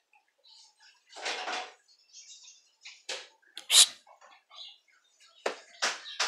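Two puppies play-fighting on a concrete floor: a string of short, sharp scuffling noises, the loudest nearly four seconds in.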